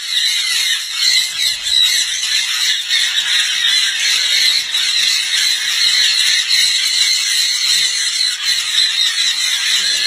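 A flock of sun and jenday conures screeching together in a continuous, dense, high-pitched din that never lets up.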